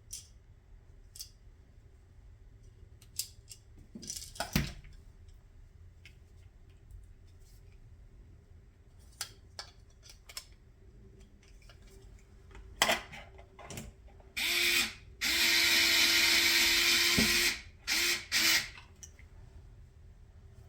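Electric drill/driver driving small stainless steel screws: a short burst about two-thirds of the way in, a steady run of about three seconds, then two brief bursts. Before that, scattered clicks and knocks of small parts and screws being handled.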